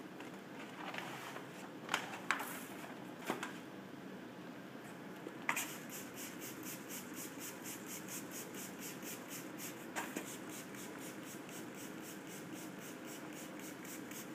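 Trigger spray bottle squirting water rapidly, about four squirts a second from about five seconds in, wetting the paper premask of a vinyl stripe kit. Before that, the big sheet of vinyl and paper crackles as it is handled, with a few sharp snaps.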